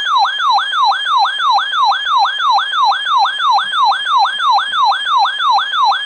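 Weather radio alert siren going off for a severe thunderstorm warning: a loud, steady, repeating falling whoop, about three sweeps a second.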